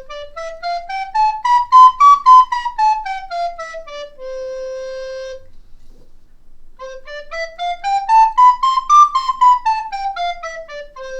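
Two plastic soprano recorders, an Angel AR-S305 and an Aulos 702BW, played one after the other for a blind A/B comparison of their sound. Each plays a scale up from low C to high D and back down, ending on a long held low note, with a short pause between the two.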